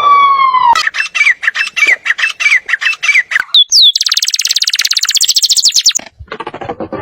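Bird calls: a run of quick falling chirps over sharp clicks for about three seconds, a couple of rising swoops, then a fast buzzy trill for about two seconds that cuts off abruptly.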